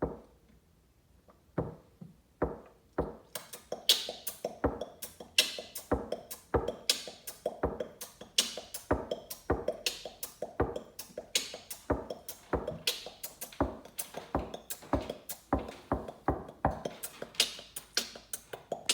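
A percussive beat built from sniffs, scoffs and coughs used as drum sounds. A few spaced hits open it, then about three seconds in a busy, steady rhythm starts, with a hissy snare-like hit about every one and a half seconds.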